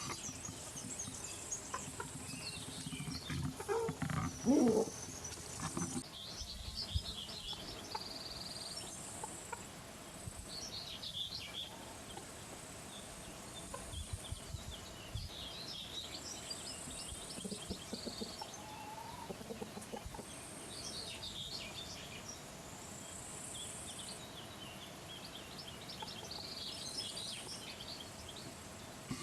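Small birds chirping and twittering, with a brief, louder, lower-pitched call about four seconds in.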